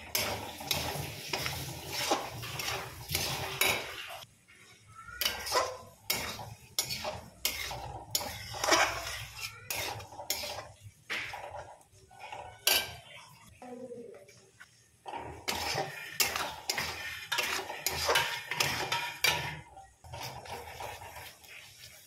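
Metal spatula scraping and clanking against a steel kadhai, stirring tomato pieces through a thick masala in quick irregular strokes, with a couple of brief pauses.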